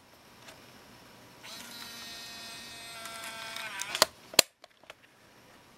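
Sony DCR-TRV340 Digital8 camcorder's cassette compartment mechanism: a small motor whines steadily for about two seconds as the tape carriage retracts into the body, dropping in pitch as it stops. Then come two sharp clicks as the compartment closes, the second the louder.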